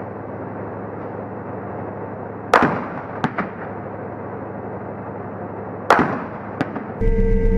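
Gunshots in urban combat, heard from atop a tank: two loud, echoing reports about two and a half and six seconds in, each followed by a lighter crack or two. Under them runs the steady low hum of the tank's engine, and near the end the sound cuts to a different steady hum.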